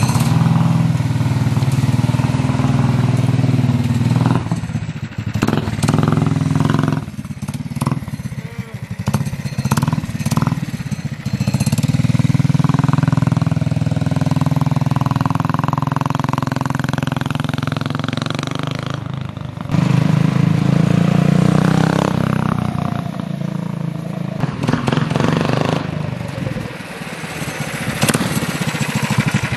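Predator 212 Ghost single-cylinder go-kart engine running as the kart drives, the throttle opened and eased again and again so the engine note swells and drops. The engine is brand new and still in its break-in period.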